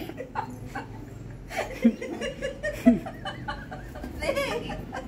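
People laughing and chuckling, with bits of indistinct talk.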